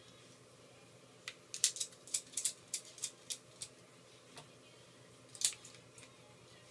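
Small sharp clicks and taps of hand tools and phone parts during an iPhone 4 teardown. About a dozen come in a quick run from just over a second in, and one more comes about two seconds later.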